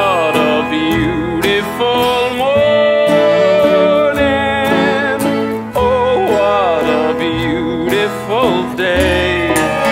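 Country-style show tune: a singer holding a wavering melody over acoustic guitar accompaniment.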